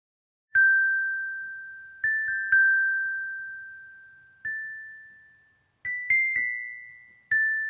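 Short chiming jingle of high, bell-like struck notes of the glockenspiel kind: about nine notes at an unhurried pace, each ringing out and fading, with the pitch stepping slightly higher in the second half.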